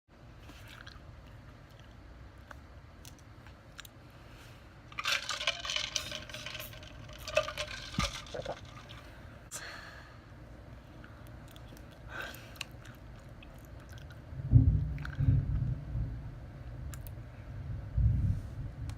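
A woman chewing blueberries with wet, crunchy mouth noises, busiest about five to eight seconds in. Later come low burps, one long one about fourteen seconds in and a shorter one near the end.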